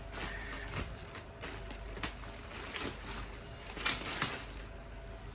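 Scissors snipping and packaging being handled: a scattering of short, sharp clicks and rustles, about half a dozen, irregularly spaced.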